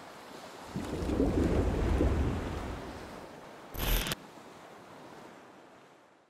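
A rushing noise, like surf, swells about a second in and slowly fades away to silence, with a brief louder burst near the four-second mark.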